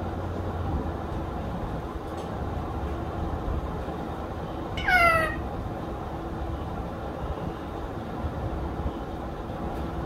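Caged pet green parrot giving one short, loud call about halfway through, falling in pitch, over a steady low room hum.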